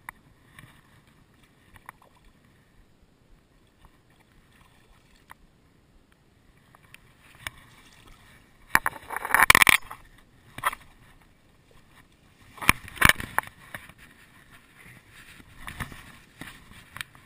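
Tall bankside grass rustling and crackling close against the camera while a hooked brown trout is drawn in and grabbed by hand, with two loud bouts of rustling about 9 and 13 seconds in.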